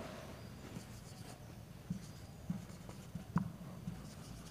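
Marker pen writing on a whiteboard, faint scratching and rubbing strokes as a word is written, with a few short, faint knocks.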